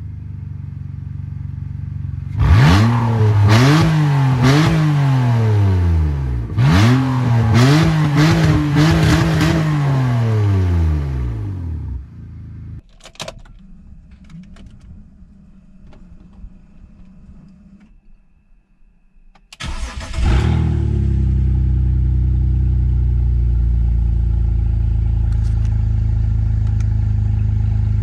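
2003 BMW E39 530i's inline-six running with its exhaust removed: idling, then revved up and down in a series of quick blips before falling back to idle. The engine is then switched off and goes quiet apart from a few clicks, and after several seconds it is cranked, catches and settles into a steady idle.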